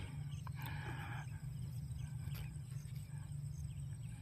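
Quiet field ambience: a steady low rumble, with one faint short animal call about half a second in and a few faint ticks.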